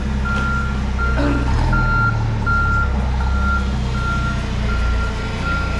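Vehicle reversing alarm beeping at an even pace, a bit under two beeps a second, over the low rumble of a running engine.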